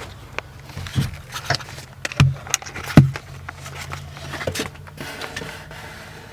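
Irregular knocks and scrapes of hands and objects handled against the boat's fiberglass tank coffin, the loudest knock about three seconds in, over a steady low hum.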